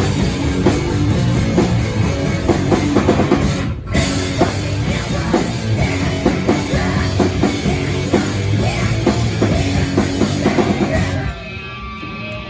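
Live hardcore punk band playing loud: pounding drum kit and distorted electric guitars, with a split-second break about four seconds in. The song stops about a second before the end.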